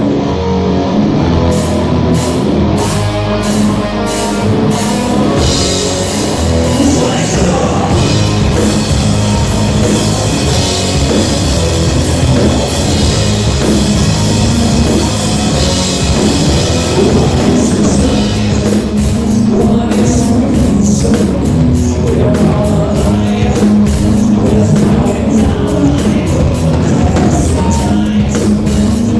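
A rock band playing loud, with a drum kit, guitar and singing; the drum strikes come quicker from about two-thirds of the way in.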